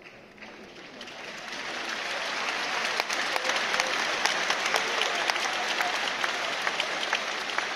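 Audience applause that builds over the first two or three seconds and then holds, with single sharp claps standing out.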